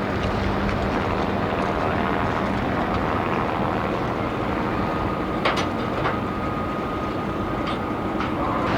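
Steady noise of a news helicopter's engine and rotors, with a thin whine joining about halfway through and two sharp clicks soon after.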